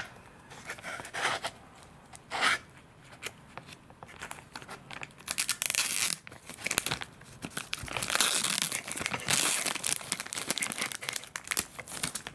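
Clear plastic sheet being peeled off a freshly moulded carbon fiber and epoxy layup, crinkling and crackling as it pulls away from the epoxy. Short separate crackles at first, then denser, louder peeling from about halfway in.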